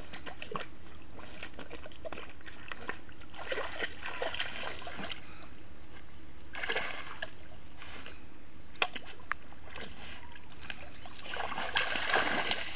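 A dog wading and plunging about in a shallow stream, splashing water in irregular bursts, the heaviest splashing near the end.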